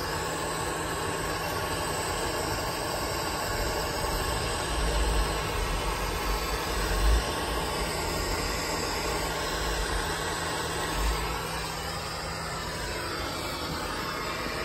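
Handheld gas torch burning with a steady hiss, its flame heating a copper-to-stainless joint for soldering. A few low thumps break in about five to seven seconds in and again near eleven seconds.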